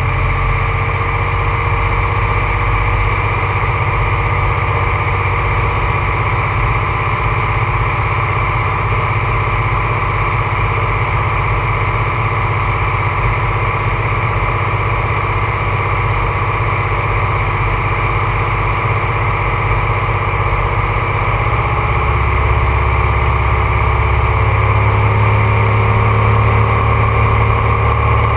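Rockwell Commander 114's six-cylinder Lycoming engine and propeller droning steadily, heard inside the cabin on final approach. The low hum grows a little louder about two-thirds of the way through.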